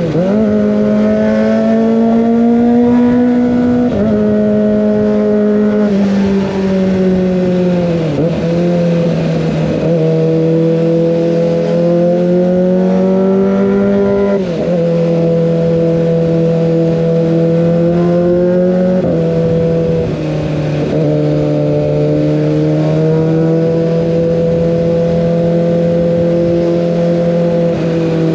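Kawasaki ZX25R's 249 cc inline-four engine through an Over Racing GP-RS full-system exhaust, ridden at fairly steady high revs. Its note dips sharply and recovers about five times, as the throttle is eased or a gear changes.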